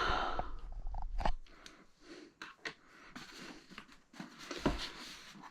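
Packaging being handled and opened: irregular crinkling, rustling and small clicks, busiest in the first second and a half, with a sharper crackle late on.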